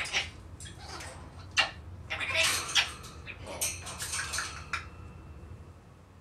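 African grey parrot vocalizing: a run of sharp clicks and short noisy, hissing sounds, broken by a few brief whistled notes, which stops about five seconds in.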